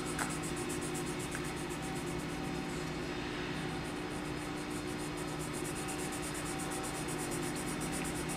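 Steady low hum with an even hiss, machine-like room noise; no distinct pencil strokes stand out.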